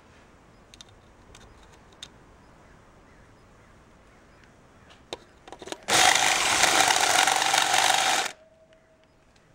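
A power drill with a step bit cutting through the metal motor end cap of a vacuum pump. There is one loud burst of drilling, lasting about two and a half seconds, that starts about six seconds in and stops abruptly. A few light clicks and taps come before it.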